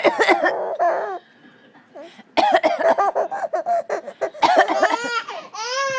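Fake coughs in short bursts, with an 11-month-old baby laughing at them in high-pitched bursts.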